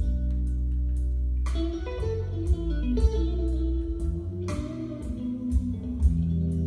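Electric guitar music with a bass line and sharp drum hits, played from a vinyl record on a MAG-LEV ML1 levitating turntable and heard through a pair of stereo loudspeakers in the room.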